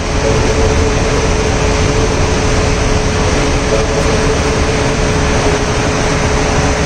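Steady loud background rumble and hiss with a constant hum, unchanged throughout.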